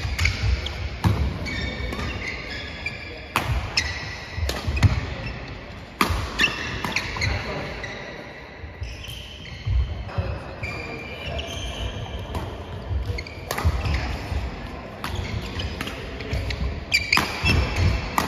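Badminton doubles play in a sports hall: sharp cracks of rackets striking the shuttlecock, with shoes squeaking on the wooden court and feet thudding. The sound echoes in the large hall. Play eases off for a few seconds around the middle, between points, then the strikes pick up again.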